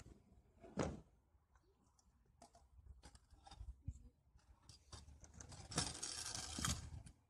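Freestyle scooter wheels rolling over asphalt close by, a rough hiss lasting about a second near the end. It comes after a single sharp clack about a second in and a few light ticks.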